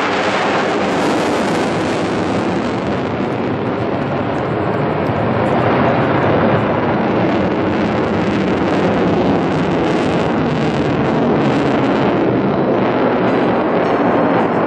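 Single-engine General Dynamics F-16 Fighting Falcon jet flying a display overhead, heard as a steady, even rushing jet noise.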